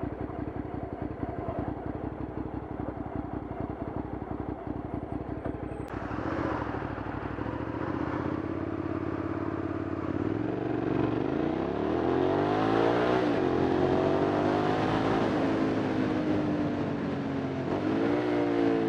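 Hyosung motorcycle engine idling with a rapid, even beat. After an abrupt change about six seconds in, it pulls away and accelerates through the gears: its pitch climbs and drops back at a shift around two-thirds of the way through, then climbs again and drops near the end, over a rush of wind noise.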